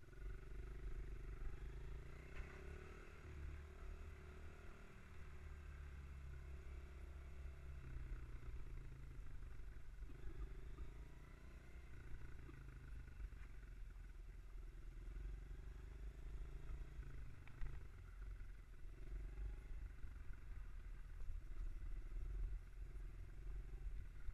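Mini bike engine running under way, a low hum whose pitch and level shift every few seconds as the throttle changes.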